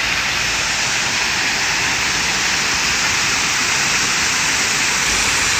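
Small waterfall splashing down over rocks into a shallow pool: a steady, even sound of falling water.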